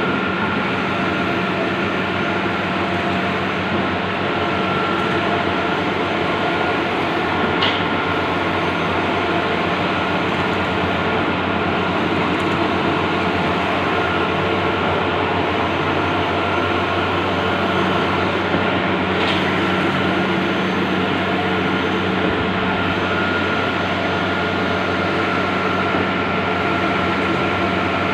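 Large-format outdoor banner printer running: a steady mechanical hum and whir with a constant high tone, and a faint brief swish twice, about eleven seconds apart.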